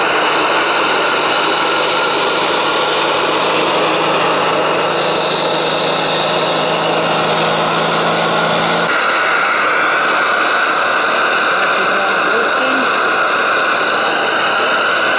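Saito T3DR three-cylinder model steam engine running steadily under steam, a continuous rushing hiss. A low hum within it stops abruptly about nine seconds in.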